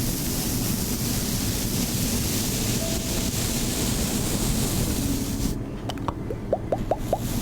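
Steady rushing water, like surf. About six seconds in it turns duller, and a quick run of short rising bubbly pops follows.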